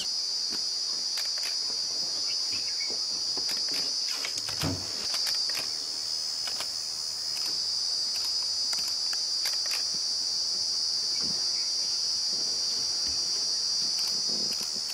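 Continuous high-pitched insect trill, steady and unbroken, with a few faint clicks.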